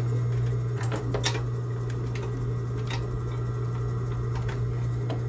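Consew 225 industrial walking-foot sewing machine, its motor humming steadily, with a few separate clicks from the needle and feed as it stitches slowly.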